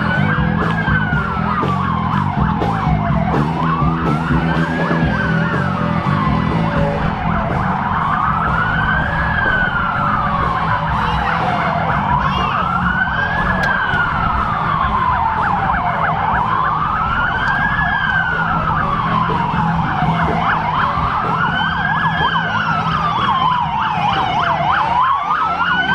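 Police siren on a slow wail, rising and falling in pitch about six times, over a low rumble.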